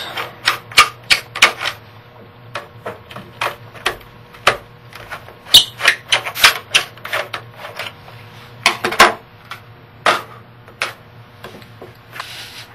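Irregular sharp clicks and taps of a screwdriver and the hard plastic of a laptop's underside while the memory access panel is removed. The clicks come in clusters with short pauses between them.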